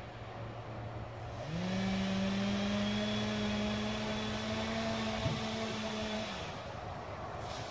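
An unseen engine running at idle revs up about a second and a half in. It holds a steady pitch for about five seconds, then drops back to idle near the end.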